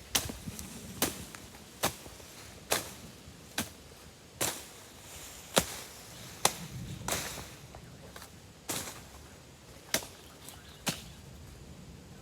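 A series of sharp chopping strikes, about a dozen, roughly one a second with uneven gaps, like a blade hacking into wood.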